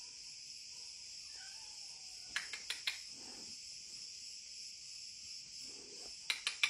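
Insects shrilling steadily in a high continuous hiss. Sharp clicks cut in, three or four about two and a half seconds in and a quicker run of louder ones near the end.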